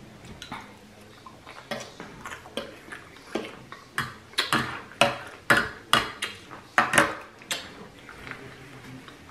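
Metal fork clicking and tapping against a plate while picking up salad: a run of sharp clicks that grows louder and closer together in the middle, then thins out near the end.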